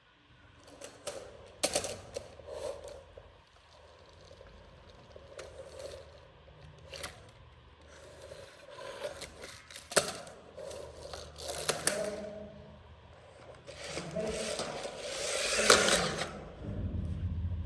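Toy vehicles being handled and moved: scattered sharp clicks and knocks, with a longer, louder scrape about fifteen seconds in.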